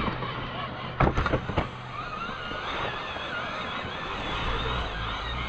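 Small RC scale truck driving over rough ground, its electric motor and gears whining up and down with the throttle, with a short run of knocks and clatters about a second in.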